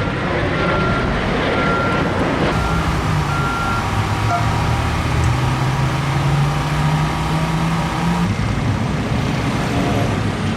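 Street traffic with a vehicle's reversing alarm beeping at an even rhythm over the first few seconds. Then a vehicle engine runs, its pitch rising slowly, and it drops out well before the end.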